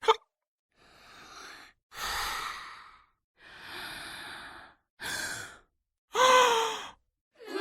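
A person breathing in and out slowly several times with audible, breathy breaths, then a louder voiced sigh whose pitch falls, near the end.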